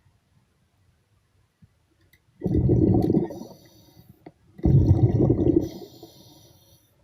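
A diver breathing through a regulator underwater: two long bubbling exhalations about two seconds apart, each with a fainter hiss around it.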